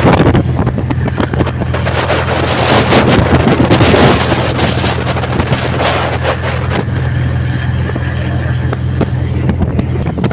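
Speedboat river taxi's outboard engine running steadily at speed, with rushing water and wind buffeting the microphone.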